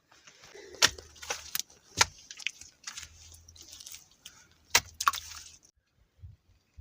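Wet mud plaster being worked by hand: a few sharp slaps and knocks with scraping and smearing between them. The sounds stop about two-thirds of the way through.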